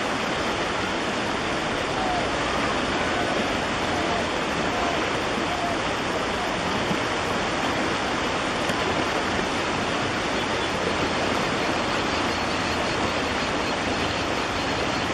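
Floodwater rushing steadily over the edge of an overflowing low bridge, a constant heavy wash of spilling water.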